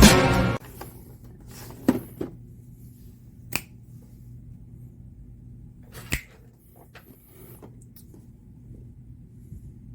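Intro music cutting off half a second in, then a quiet room with a few short, separate clicks and knocks, typical of handling packaging.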